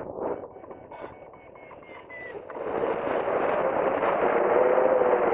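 Wind rushing over the camera microphone of a hang glider in flight: a steady windy noise that drops away just after the start and swells back from about two and a half seconds in.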